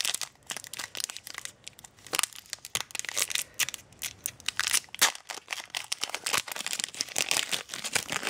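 Pokémon EX Unseen Forces booster pack's foil wrapper crinkling and tearing as it is worked open by hand, a steady run of irregular crackles.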